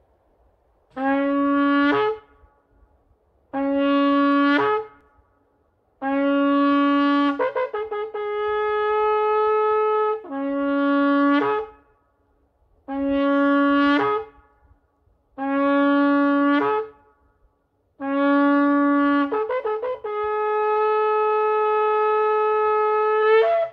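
A long curved shofar blown in seven blasts. Most are short blasts on a low note that jump up to a higher note at the very end; the third and the last break into a quick stutter partway and then hold the higher note for a few seconds.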